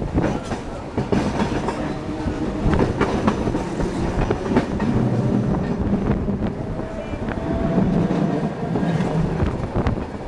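St. Charles line streetcar, a vintage Perley Thomas car, running along its track, heard from on board: a steady rumble of steel wheels on rail with irregular clicks and knocks.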